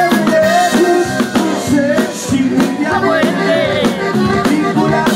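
Live band music: a male lead singer with electric guitar and drums, played loud on a stage sound system.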